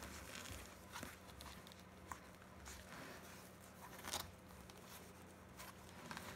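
Faint rustling and a few light knocks from a woven basket being handled with a young bullmastiff puppy shifting inside it, over a low steady hum. The clearest knocks come about a second in and just after four seconds.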